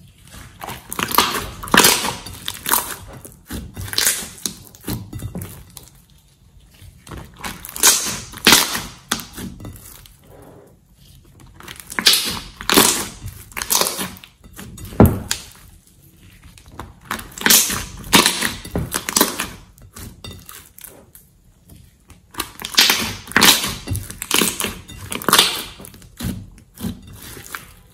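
Thick slime squeezed and kneaded by hand, giving sticky clicking squelches in bursts every few seconds, with short quieter gaps between squeezes.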